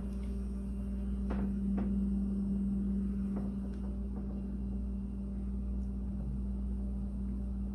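Steady low electrical-sounding hum with a few faint clicks, like a phone being handled.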